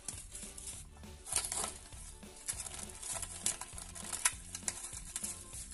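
Plastic cling wrap crinkling in short, scattered rustles as it is handled over a baking dish, with faint background music.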